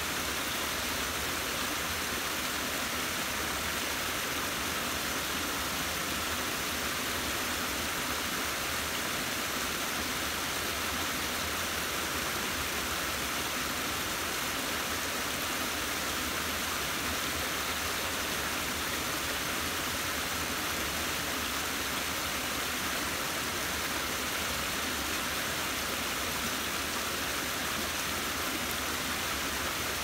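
Small rocky stream running over low cascades: a steady, even rush of water with no changes.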